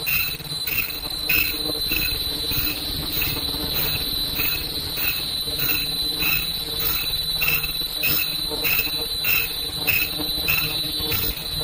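Fully automatic face mask production line running at speed: a steady high-pitched whine with a rhythmic chirp repeating about twice a second over a low mechanical rumble, the machine's working cycle.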